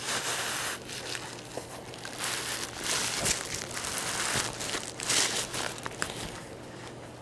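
Plastic wrap crinkling in irregular bursts as a revolver wrapped in plastic and paper towels is worked down into a wet leather holster to wet-mould it, with a few small ticks along the way.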